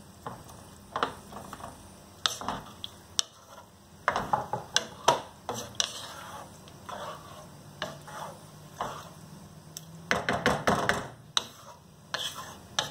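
Cooking utensils knocking and scraping in a pan: a metal spatula pushes boiled eggs off a plastic plate into a pan of wet rice and spices, then a wooden spatula stirs and taps against the pan. The clicks and knocks are irregular and bunch together about four seconds in and again about ten seconds in.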